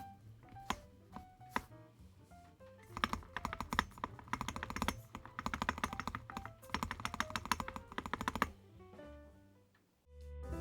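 Typing on a mechanical keyboard fitted with Awekeys full-metal keycaps. A few separate keystrokes come first, then a fast run of typing lasting about five seconds that stops near the end.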